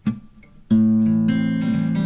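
Background guitar music: a couple of soft plucked notes, then a loud strummed chord that rings on from about two-thirds of a second in.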